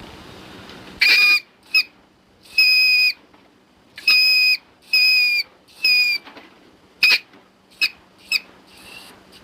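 Leptictidium creature sound effect: a run of about ten high whistling squeaks, each short and two-pitched with a slight downward dip at its end, the later ones briefer and fainter.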